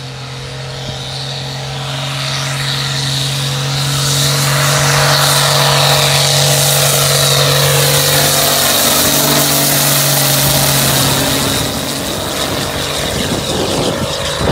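Ford farm tractor's diesel engine working hard under load up a hill, towing a dump wagon, with a steady low note. It grows louder as the tractor approaches, then drops away as it passes about eleven and a half seconds in.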